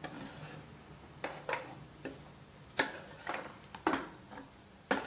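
A spatula scraping and knocking against a pan while cooked macaroni is tossed and stirred, in about seven or eight irregular strokes, the sharpest just before three seconds in and near the end.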